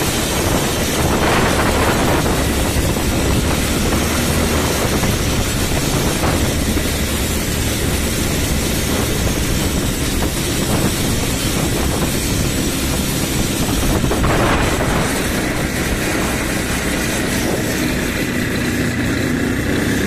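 Quad bike (ATV) engines running steadily under way, a continuous drone mixed with road noise.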